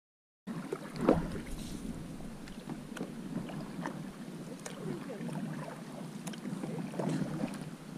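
Paddles stroking the water around an aluminum canoe under way, with a few light knocks against the hull, the loudest about a second in, and wind on the microphone.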